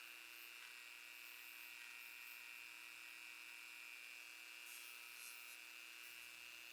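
Dremel rotary tool with a brush bit running steadily at high speed, a faint constant whine, scrubbing crud off a pocket knife's scales.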